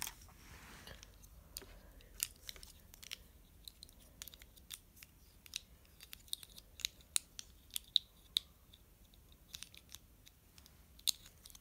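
Plastic pieces of a Calvin's Puzzle 3x3x5 cuboid clicking and tapping as a final edge piece is worked by hand into its tight slot. Irregular, sharp clicks come every fraction of a second, some louder than others.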